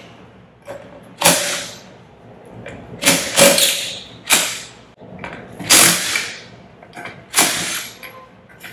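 Cordless impact wrench running in several short bursts, one every second or so, as it backs out the liquid chamber bolts.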